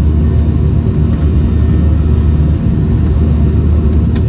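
Steady low rumble inside the cabin of a Boeing 737-700 during takeoff, from its CFM56-7B jet engines and airflow.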